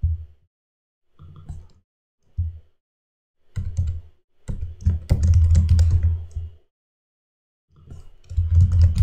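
Typing on a computer keyboard in several short bursts of key clicks with a dull thud under them, the longest run a couple of seconds in the middle, with pauses between.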